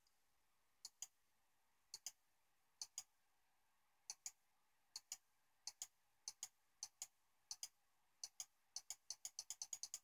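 Computer mouse button clicked repeatedly, each click a faint press-and-release pair. The clicks come about once a second, then speed up to several a second near the end.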